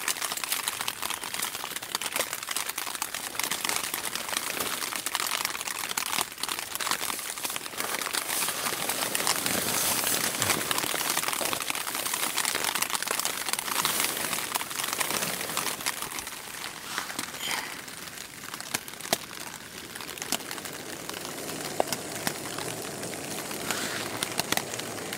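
Crinkling and rustling of a plastic water bottle and nylon camping gear being handled: a dense crackle of small clicks throughout, easing a little in the last several seconds.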